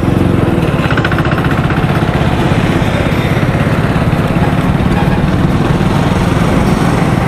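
Motorcycle engine running steadily while riding at cruising speed, heard from on the bike as a fast, even putter.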